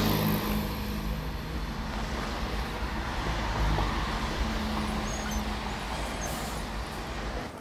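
Road traffic on a city street, with a motor vehicle's engine running close by over steady road rumble. It cuts off abruptly near the end.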